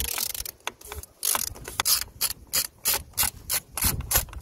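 Ratchet with a 32 mm socket clicking in a quick, even run of strokes, about four or five a second, as it undoes the screw-on oil filter housing cap on an Audi A4 2.0 diesel engine.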